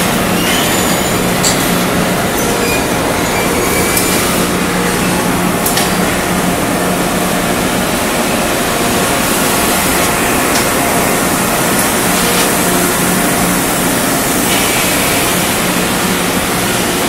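Ceramic tile production-line machinery running: a loud, steady mechanical din from roller conveyors and belt-and-pulley drives, with a steady low hum underneath.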